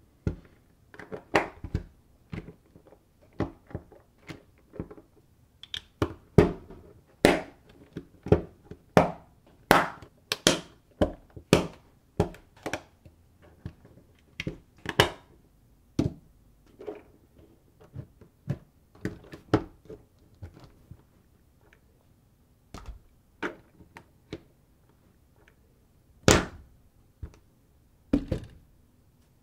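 Lego Technic plastic parts being handled, pressed and snapped together by hand: irregular sharp clicks and knocks, some in quick clusters, with a louder knock near the end.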